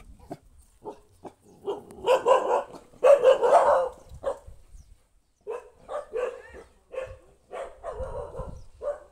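Dog howling: loud drawn-out calls about two seconds in, then a run of shorter howling yelps, two or three a second, toward the end.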